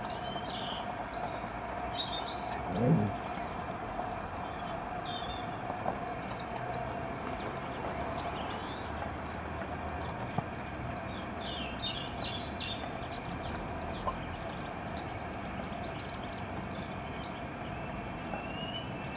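Gauge 0 model train running along garden track with a steady whine, while small birds chirp over it. A single low thump comes about three seconds in.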